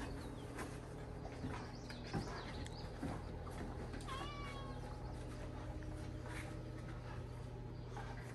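A puppy whining during play over a tug toy, one short high whine about four seconds in and a few fainter whimpers earlier, with soft knocks and scuffling of paws on the cushion and deck, the loudest a thump about two seconds in.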